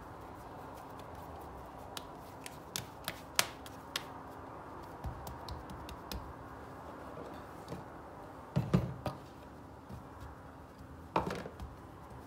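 Hands working a ball of dough on a floured stone countertop: scattered light taps and clicks, then a few louder thuds of the dough being patted and pressed against the counter, the loudest about two-thirds of the way in.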